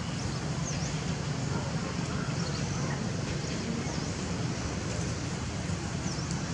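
Steady outdoor background rumble, like distant traffic, with a few short, high chirps scattered through it.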